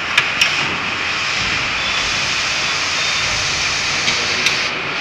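Steady, loud mechanical roar of background machinery, with sharp metallic clicks from the vacuum circuit breaker's steel frame and handle as it is handled, twice near the start and once near the end.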